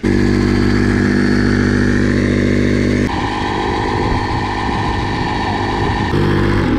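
12-volt electric air pump, powered from a car battery, switching on suddenly and running steadily as it inflates an inflatable boat through its hose. Its tone changes about three seconds in and changes back near the end.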